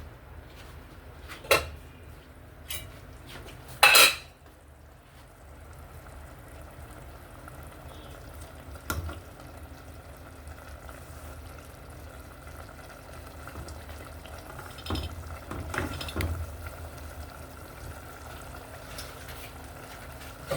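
Metal cookware and utensils knocking and clinking against pots: a handful of sharp knocks, the loudest about four seconds in with a brief ring, and a short cluster of them about fifteen seconds in, over a steady low hum.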